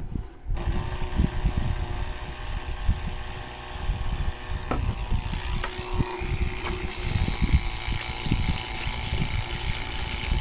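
12V water spray pump running with a steady motor hum over an uneven low rumble; from about seven seconds in a hiss of spraying water joins.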